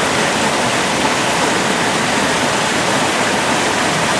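Rushing stream water running steadily, a loud even hiss.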